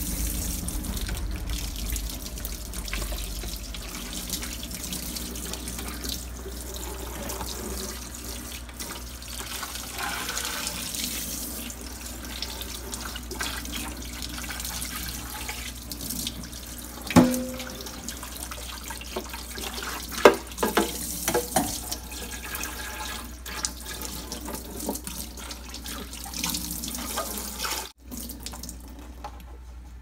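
Kitchen faucet running into a stainless steel sink while a clear plastic fridge drawer is rinsed under the stream, water splashing steadily off the plastic. About halfway through come a few sharp knocks, the plastic bin bumping against the sink.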